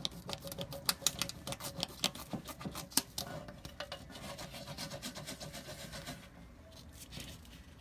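A rub-on transfer sheet being rubbed down and peeled by hand on a glass panel: a quick run of scratchy rubs and crinkly clicks that thins out after about four seconds.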